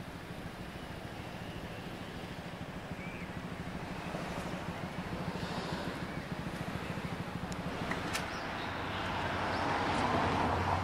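Road traffic noise, growing louder near the end as a vehicle approaches.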